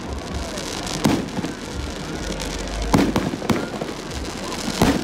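Fireworks display, aerial shells bursting: four sharp bangs, about a second in, two close together around three seconds, and one near the end, with smaller crackles between.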